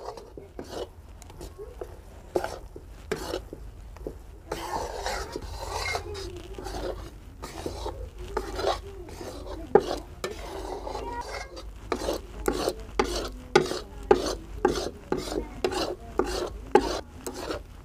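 A metal spatula scraping and tapping around the inside of a metal kadai, stirring coarse gram flour roasting in ghee. The strokes come in an irregular run that gets busier and louder in the second half.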